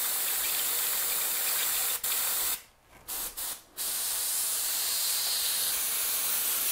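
An airbrush hisses steadily on compressed air as it sprays rubbing alcohol. About two and a half seconds in the trigger is released, there are two short puffs, and then steady spraying resumes. The freshly cleaned and reassembled airbrush is being flushed with alcohol onto a paper towel to test for leftover paint.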